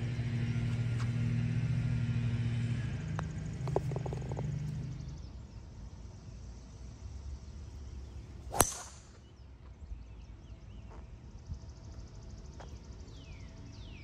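Golf club striking a ball once, a single sharp crack about eight and a half seconds in. Before it a motor's steady low hum fades out around five seconds in, and birds chirp near the end.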